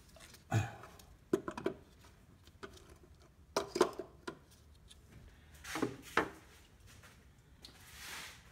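Handling noise: light clicks, knocks and rubbing in several short clusters, the loudest about four seconds in.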